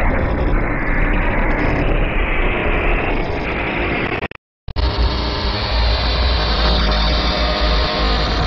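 Heavily distorted, effects-processed audio of a logo preview: a dense, noisy din. It cuts out to silence briefly about four and a half seconds in, then comes back duller, with its top end missing.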